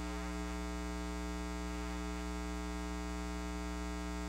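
Steady electrical mains hum: an unchanging buzz made of many evenly spaced tones, with no other sound over it.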